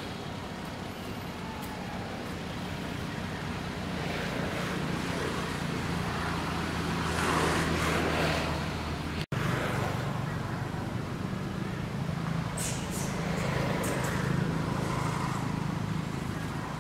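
Steady low engine hum, as of a motor vehicle running, under outdoor background noise; the sound drops out for an instant about nine seconds in.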